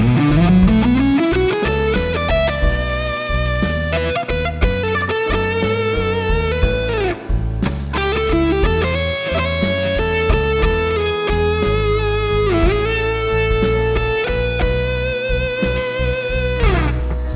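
Overdriven electric guitar through the Nux Amp Academy's Fireman HBE drive amp model, playing a blues lead. It slides up into a long held note, then holds sustained notes with vibrato and a few bends down. A blues backing track of bass and drums plays underneath.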